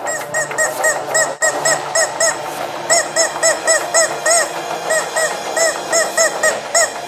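Rubber chicken squeak toy squeezed in quick runs of short honks, each rising and falling in pitch, a few a second, with a brief pause about two and a half seconds in. The irregular, speech-like rhythm stands in for a voice speaking the subtitled line.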